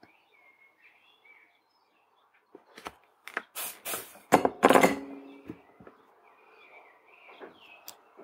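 A cluster of sharp clicks and knocks, one with a brief metallic ring, as a soldering iron and a small circuit board are put down on the work surface. Faint bird chirps can be heard before and after it.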